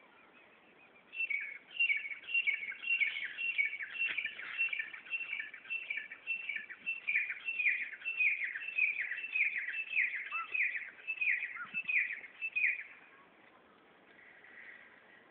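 A bird singing a long run of short, high, descending chirps, about two or three a second, starting about a second in and stopping a couple of seconds before the end.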